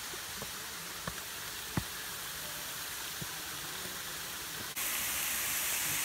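Steady rushing hiss of a waterfall, stepping up louder about five seconds in, with a couple of faint knocks in the first two seconds.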